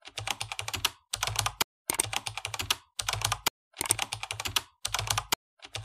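Keyboard typing sound effect: short runs of rapid key clicks with brief pauses between them, keeping time with text being typed out on screen.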